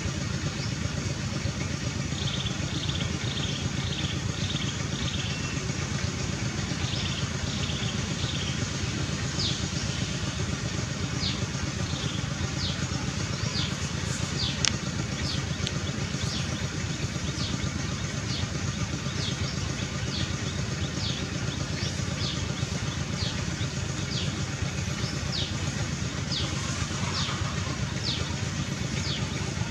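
Outdoor ambience: a steady low hum like distant motor traffic, with a bird repeating short high chirps, more than once a second at first and then evenly, about every second. A single sharp click comes about halfway through.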